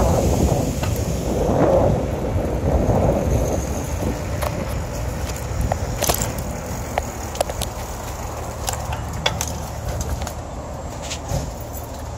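Wind rumble on the microphone for the first couple of seconds, easing off, then a low steady hum with scattered clicks and knocks of the phone being handled while he moves.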